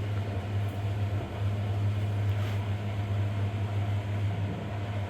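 Steady low mechanical hum with a faint hiss above it, unchanging throughout, with no distinct knocks or rustles.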